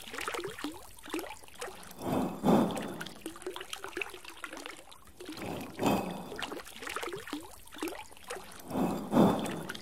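Water trickling and gurgling, with a louder gush of pouring water swelling up about every three seconds.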